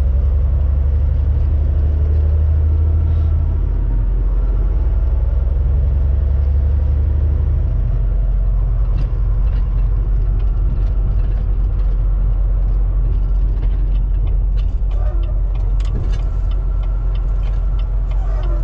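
Steady low drone of a Volvo VNL semi truck's diesel engine and road noise, heard from inside the cab while driving; the deep engine note changes about four and again about eight seconds in. Light irregular clicks and rattles come in over the last few seconds.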